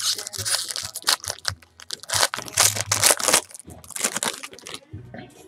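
Foil wrapper of a baseball card pack crinkling and tearing as it is ripped open and pulled off the cards: a dense run of irregular crackles that stops about five seconds in.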